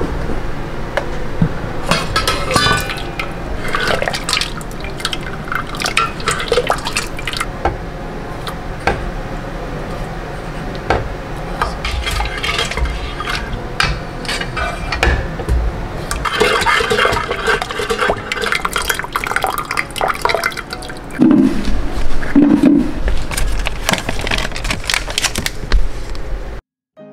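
Kitchen handling of a pot and its steel lid: repeated metal clinks and knocks over the sound of water or liquid, louder for a few seconds about 21 seconds in.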